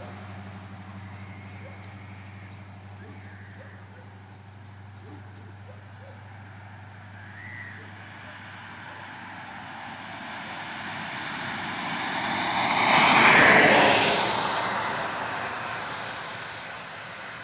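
A vehicle passing by, growing louder over several seconds to a peak about thirteen seconds in, then fading away, over a steady low hum.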